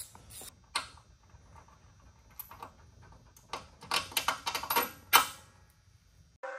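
Irregular clicks and light metallic clatter of tools and mounting hardware being handled while a rear shock absorber is held up to its mount, with a dense run of clicks about four seconds in. Music begins just before the end.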